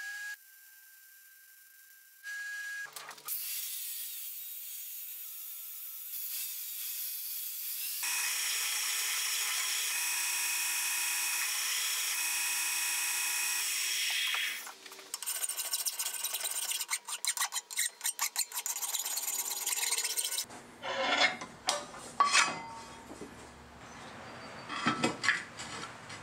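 Combination belt sander grinding the welded ends of steel tubes, a steady gritty run for several seconds that then breaks into a choppier stretch. After that come sharp knocks and clunks of the heavy steel tubes being handled and set down on a steel plate, the loudest sounds.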